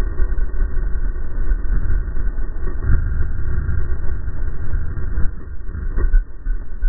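Honda CRF450R single-cylinder four-stroke dirt bike riding down a gravel fire road, the engine running under heavy wind buffeting on the camera mic. There are a few short knocks from bumps in the track.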